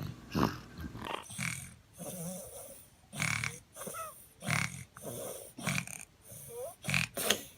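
A baby snoring: an irregular run of short, noisy breaths, some with a brief squeaky glide in pitch.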